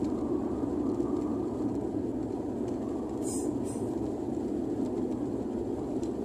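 Steady rumble of a car driving at speed on an asphalt road: tyre and engine noise, with two brief faint hisses about halfway through.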